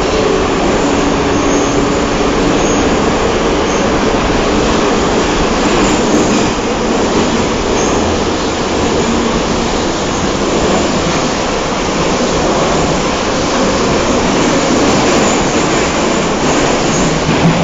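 Moscow Metro train running through a tunnel, heard from inside the carriage: a loud, steady rumble and roar of wheels on rails, with faint whining tones that come and go.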